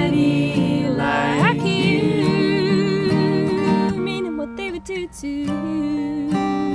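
Acoustic guitars strumming under long held sung notes with vibrato, in a folk song. The music thins out for a moment about two-thirds of the way through, then the guitars and voice carry on.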